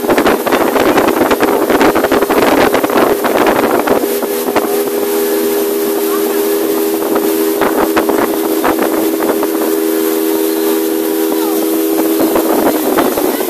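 Outboard motor of a small fiberglass launch running steadily under way, a continuous droning hum, with wind buffeting the microphone heavily during the first few seconds. The motor's tone shifts near the end.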